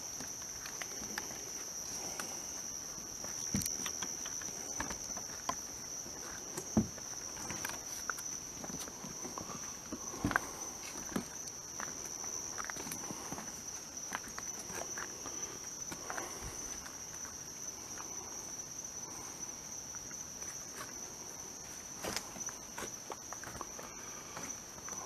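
A steady high-pitched chorus of night insects, with footsteps and the rustle of brush and reeds being pushed through, a few sharper knocks among them.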